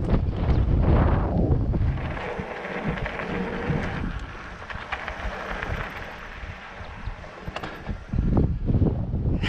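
Wind buffeting the microphone of a camera on a mountain bike rolling down a dirt trail, with hiss and scattered clicks from the ride. The buffeting is heavy at first, eases for most of the middle, and comes back strongly near the end.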